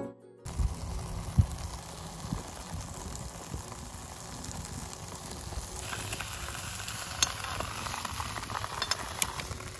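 Outdoor ambience: a low, uneven rumble like wind on the microphone, with a steady hiss that grows louder about six seconds in and a few light clicks.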